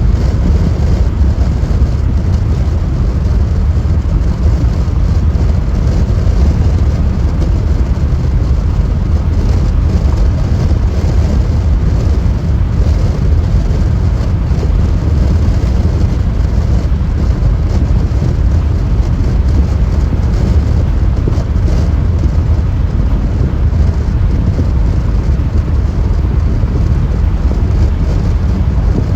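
Car driving at freeway speed: steady, loud tyre-and-road rumble with no letup.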